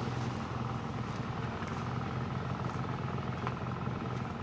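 An engine running steadily at constant speed, an even low hum.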